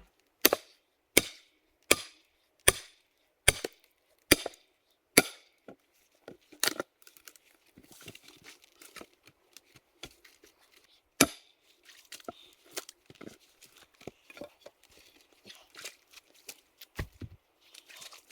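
Spruce firewood being chopped: about seven sharp, evenly spaced wooden chops in the first five seconds, then scattered lighter knocks and clatter with one more hard strike near the middle.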